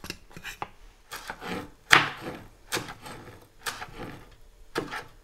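Chef's knife chopping fresh coriander leaves on a wooden chopping board: a series of irregular knocks of the blade on the wood, the loudest about two seconds in.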